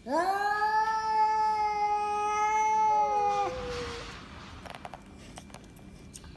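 Cats yowling in a standoff. One long, drawn-out yowl rises and then holds steady for about three and a half seconds, and a second, lower yowl overlaps its end. A short hiss and a few faint clicks follow.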